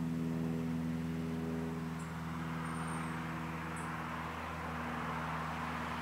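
Federal 2T22 two-tone outdoor warning siren sounding a steady chord, loudest in the first two seconds. A passing vehicle's road hiss swells over it in the second half.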